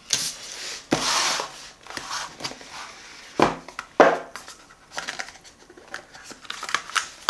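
Packaging being handled: cardboard and paper rustling and sliding in short swishes, with a few light knocks and clicks.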